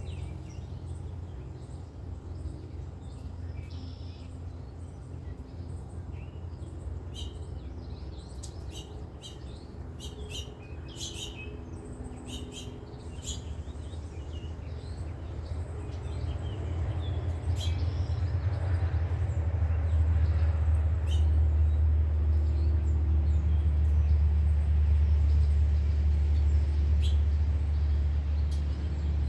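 Songbirds chirping in short high calls. A steady low rumble runs underneath, swelling about halfway through and staying loud to the end as the storm comes in.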